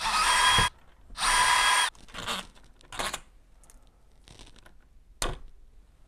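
Cordless brushless drill/driver running in two short bursts, backing out the mounting screws of a deadbolt's inside thumbturn. A few light clicks follow.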